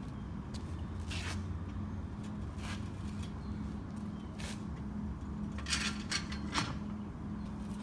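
Short metallic clicks and scrapes of tire tools working on a steel loader-wheel rim, a few scattered and then a quick cluster of sharper ones near the end, over a steady low hum.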